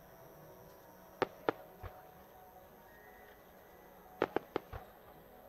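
Aerial firework shells bursting: two sharp bangs about a second in, then a quick run of four bangs a little after four seconds, each run followed by a low thud.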